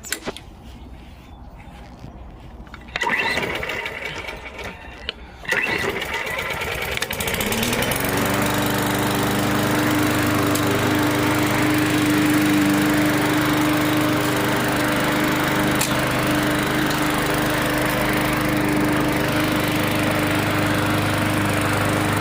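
Lawnmower's small gas engine being started after months in storage: a first attempt about three seconds in that does not take, then a second attempt that catches, revs up and settles into a steady run.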